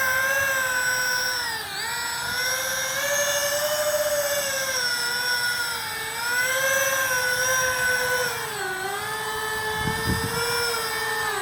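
Electric ducted fans of an RC Airbus A330 airliner model whining at low taxi throttle. The pitch rises and falls as the throttle is worked, dipping twice.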